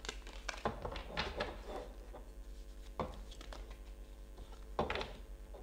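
A tarot deck being handled: a quick run of card flicks and snaps in the first couple of seconds, then single sharp taps about three and five seconds in as cards are drawn and laid on the desk.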